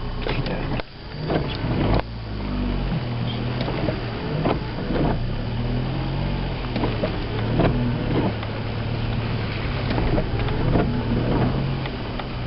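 A 1998 Kia Sportage's 2.0-litre petrol engine running at low speed, heard from inside the cabin. It dips briefly about a second in, then settles into a steady drone. Scattered knocks and rattles from the body come through as the car crawls over a rough forest track.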